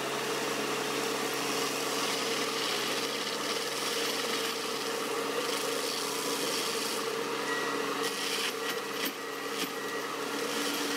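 Prentice wheeled forestry mulcher running, its rotor head grinding brush and wood: a steady machine hum under a constant hiss, with a few sharp cracks of wood in the last few seconds.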